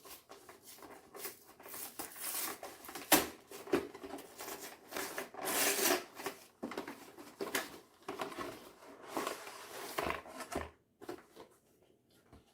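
A cardboard trading-card collection box and its packaging being handled and opened: irregular rustling and scraping, with a sharp click about three seconds in.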